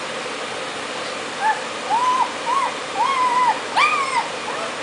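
Newborn Great Dane puppies crying: a run of about five short squeals, each rising and falling in pitch, starting about a second and a half in, the last one higher. A steady hiss lies under them.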